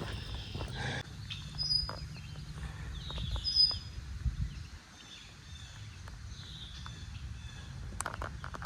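Small birds chirping and calling in short high notes, over a low rumble that is heaviest in the first half. A few sharp clicks come near the end.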